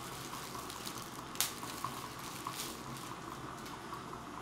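A spoon stirring powdered drink mix into water in glass mason jars: a soft liquid swirl with a few light clinks of the spoon against the glass, the sharpest about a second and a half in.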